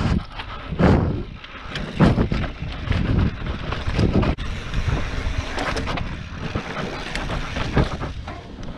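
Mountain bike ridden along a dirt and rock trail: wind buffeting the microphone over the rolling of the tyres, with the bike knocking and clattering over bumps several times.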